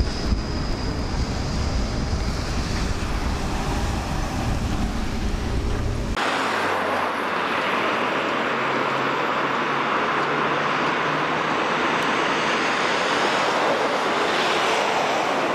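A tram rolls past with a heavy low rumble. About six seconds in, the sound cuts off abruptly to a steady hiss of distant city traffic.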